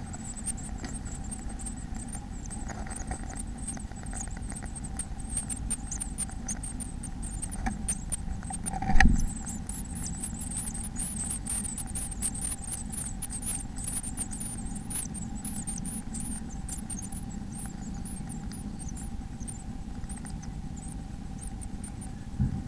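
Inside a bird nest box: a steady electrical hum with many small scratches and clicks and a faint, high, wavering cheeping throughout, and one loud thump about nine seconds in.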